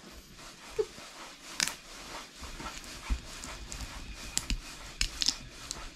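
Low rustling and handling noise with a few sharp clicks and taps: one about one and a half seconds in, then several close together in the second half.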